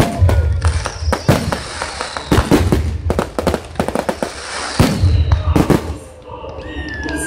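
Fireworks display: aerial shells bursting in a rapid run of bangs and crackles, with deep booms a few times, easing off near the end.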